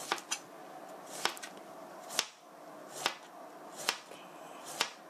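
A kitchen knife slicing a Korean zucchini into rounds, each stroke ending in a sharp tap on the cutting board, about once a second.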